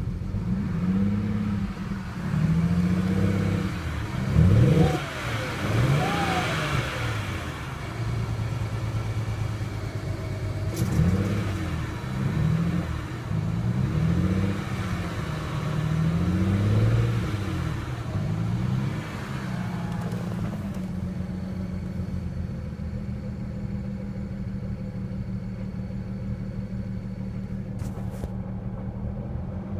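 2007 BMW 335i's twin-turbo straight-six engine, misfiring, revved up and down several times and then left to idle steadily from about two-thirds of the way in. The owner suspects an ignition coil or spark plug is behind the misfire.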